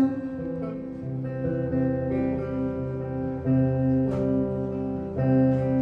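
Acoustic guitar playing an instrumental passage of sustained chords, changing about once a second.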